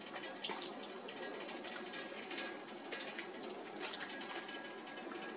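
Meat soup (shurba) being ladled from the pot into a serving bowl: faint pouring and splashing of liquid, with a few soft taps.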